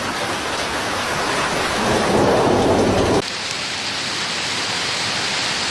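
Hail and rain pelting down in a storm: a loud, dense, steady hiss. About three seconds in it changes abruptly and loses its deeper part.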